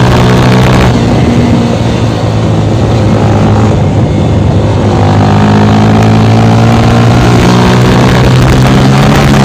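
Honda CB 300's single-cylinder engine running loud through an aftermarket Fortuna mini sport exhaust, a steady note that turns rougher for a few seconds about a second in, then settles back to a steady pitch.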